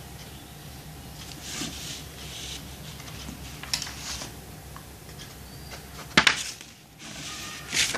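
Drafting-machine scales and a pencil scraping and rubbing on drawing paper in short strokes, with a click and a sharp knock about six seconds in, then another scrape near the end.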